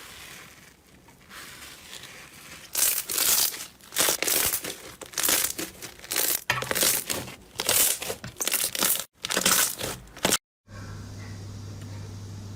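Slime being squeezed and stretched by hand, giving a string of loud, irregular crackling and crinkling bursts. A little over ten seconds in, the sound cuts off abruptly and a steady low hum follows.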